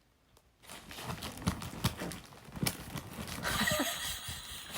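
A small dog, a Maltese, shifting about: scattered light taps and knocks with a stretch of rustling near the end.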